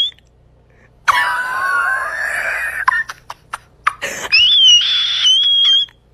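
Two long, high-pitched wavering squeals, one about a second in and a higher one a little after four seconds in, with a few sharp clicks between them.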